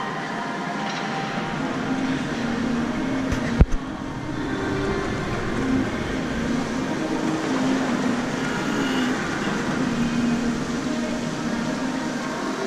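Steady hum and hubbub of a large indoor shopping arcade. There is one sharp thump about three and a half seconds in.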